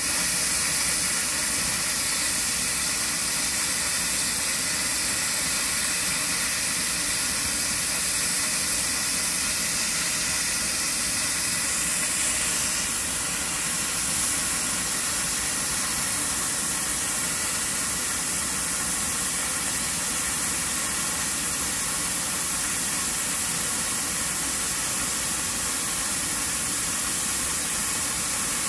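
Steam hissing steadily and loudly from GWR Saint-class 4-6-0 locomotive No. 2999 standing in steam, the hiss thinning slightly a little before halfway.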